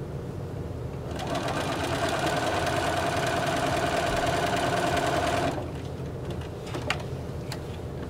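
Bernina sewing machine stitching a seam through layered quilt fabric: a steady machine hum that starts about a second in and stops abruptly after about four and a half seconds, followed by a few light clicks.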